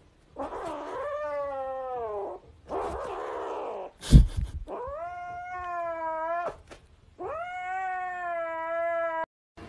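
Kitten giving three long, drawn-out yowling meows, each sliding down in pitch at the end. A loud thump comes about four seconds in, between the first and second calls.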